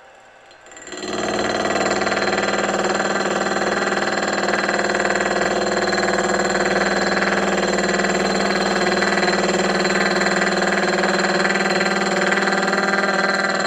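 Milling machine starting about a second in and then running steadily with a whine of several steady tones as a gear cutter cuts a tooth in a gear blank held on a dividing head.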